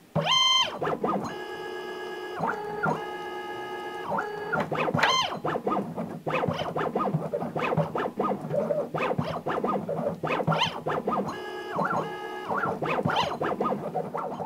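Stepper motor turning the CNC gantry's ball screw in a series of jog moves. Each move is a whine that rises in pitch as it speeds up, holds steady, then drops away as it stops. Ticking and rattling runs through the later moves. This is the newly installed Y-axis drive being test-run.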